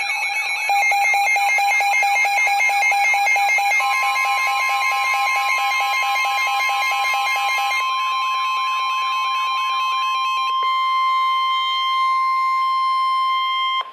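Weather radio alert alarms sounding for a severe thunderstorm warning: several electronic tones overlap, with fast warbling sweeps and a rapid beeping tone. About four seconds in, a steady tone comes in, the NOAA Weather Radio 1050 Hz warning alarm tone, and holds until it cuts off abruptly.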